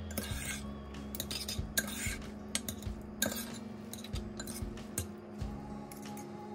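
A metal spoon and chopsticks stirring noodles in a ceramic bowl, with irregular clinks and scrapes against the bowl. Background music plays underneath.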